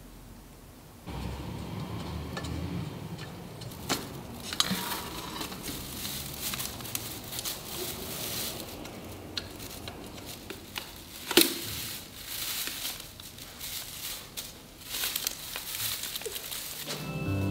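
Artificial Christmas tree branches with plastic needles rustling and crinkling as they are handled, with scattered sharp clicks and knocks, the loudest about eleven seconds in.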